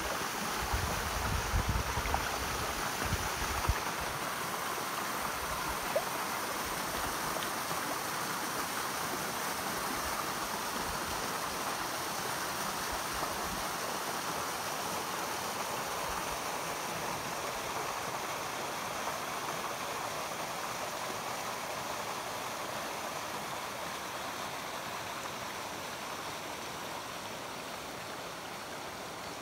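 Shallow river water running and babbling steadily, with a few low thumps in the first few seconds, growing a little quieter near the end.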